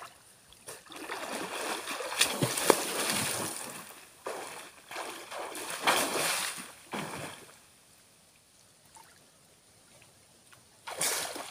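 Water splashing and sloshing as a person swims through a muddy river, with the largest splash about six seconds in as he dives under. It goes nearly quiet while he is under, and there is another splash near the end as he comes back up.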